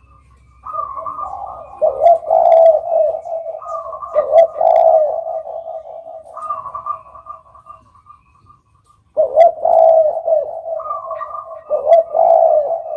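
Spotted doves (derkuku) cooing in repeated, overlapping phrases, with a short pause about eight seconds in.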